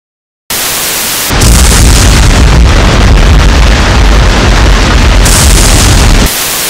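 Loud storm sound effect: a steady rushing noise like heavy rain and wind, with a deep rumble underneath from about a second in until near the end, then an abrupt cut-off.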